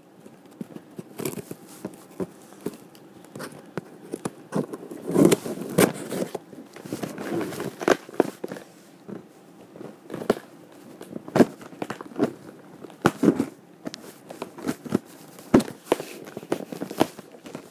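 Irregular handling noise: scattered knocks, taps and rustles as a recording phone is put down and a delivered package is handled.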